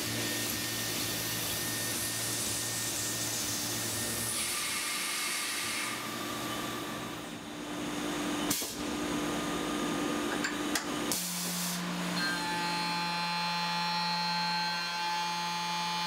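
A Tormach PCNC 770 mill cutting aluminium with an end mill: steady spindle and cutting whine under the constant hiss of a spray nozzle aimed at the cut. The whine's pitch changes abruptly several times, with a sharp click a little over halfway.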